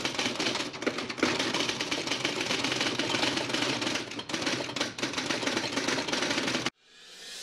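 Typewriter clatter, rapid keystrokes in a dense run, cutting off suddenly near the end; music begins to fade in just after.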